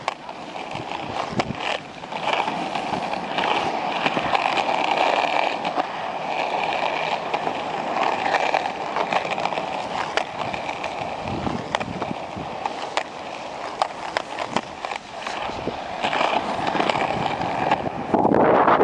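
Small plastic cruiser skateboard rolling over pavement: a steady rolling rumble from the wheels with repeated sharp clicks, and a louder rush of noise near the end.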